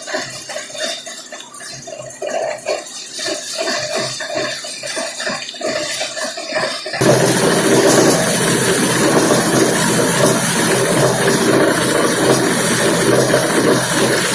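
Machinery in a plant recycling used woven plastic sacks, running. It starts as irregular clattering, then about halfway through switches suddenly to a much louder, dense rushing noise.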